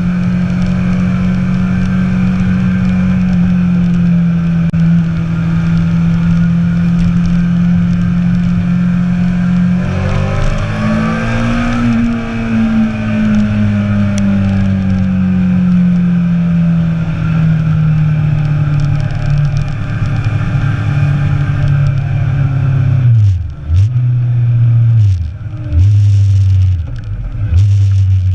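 Motorcycle engine running at a steady pitch, rising a little about a third of the way in and then falling slowly. Near the end the revs drop sharply and pick up again three times.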